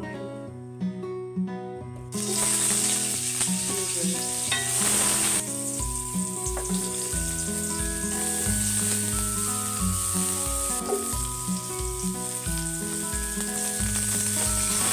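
Ginger and garlic sizzling in hot oil in a wok, the hiss starting about two seconds in, with a wooden spatula stirring near the end. Background music with a steady beat plays under it.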